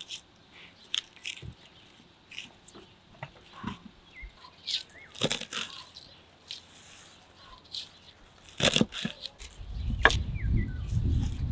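Food preparation on a wooden board: a knife cracking through cauliflower florets and fresh parsley being torn and chopped, heard as scattered crisp snaps and crunches. A low rumble comes in near the end.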